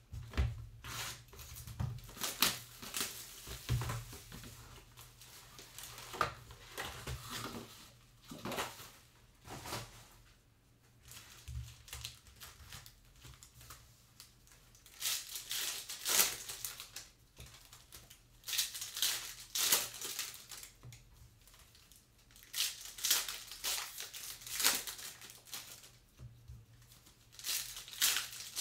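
Trading-card pack wrappers crinkling and tearing as gloved hands rip packs open, in irregular bursts. There are a few low knocks in the first few seconds as the cardboard hobby box is handled.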